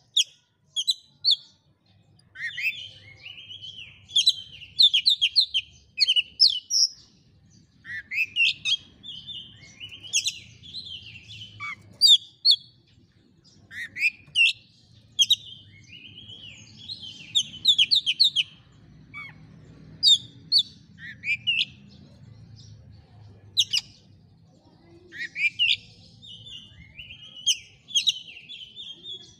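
Oriental magpie-robin (kacer) singing a lively, varied song: phrase after phrase of rising and falling whistles, quick trills and sharp high chirps, with short pauses between phrases every second or two. It is a bold challenge song of a male looking for a rival.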